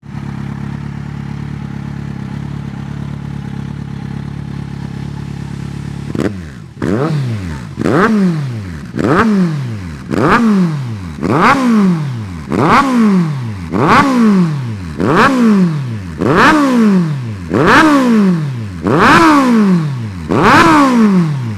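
Kawasaki Ninja 1000's inline-four engine through a Hurricane Taylor Made aftermarket exhaust, loud. It idles steadily for about six seconds, then is revved in a run of about a dozen quick throttle blips, roughly one a second, each rising sharply and falling back.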